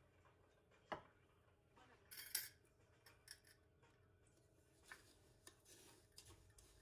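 Quiet handling of small household objects: a sharp click about a second in, a brief scraping rustle a little past two seconds in (the loudest sound), then a few faint clicks and taps.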